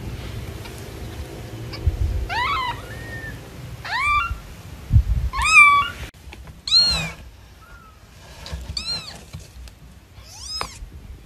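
Newborn kitten mewing: about six high, thin cries that rise and fall in pitch, a second or two apart, with low handling bumps between them.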